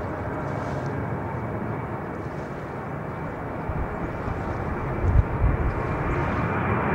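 Boeing 747's four turbofan engines at takeoff thrust on the takeoff roll: a broad, steady jet noise that grows louder throughout, with deep rumbling coming in from about four seconds in.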